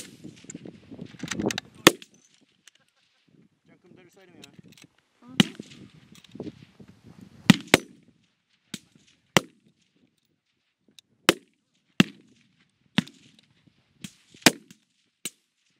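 Rifle shots from a firing line: about a dozen sharp cracks at uneven intervals, two of them in quick succession about seven and a half seconds in.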